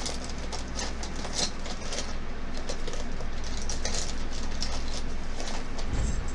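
Faint rustles and light clicks of makeup brushes and products being handled, over a steady low hum.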